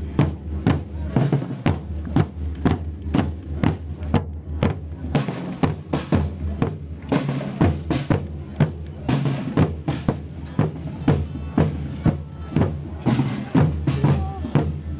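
A group of field drums with painted wooden shells beating a steady march rhythm, many sharp stick strokes in even succession.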